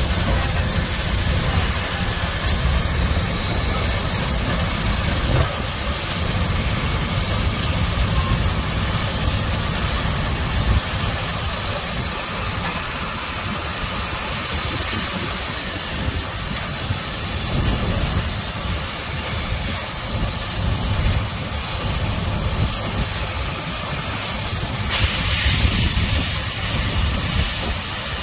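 2-8-2 steam locomotive 4501 moving slowly, hissing steam over an uneven low rumble, with the hiss getting louder near the end.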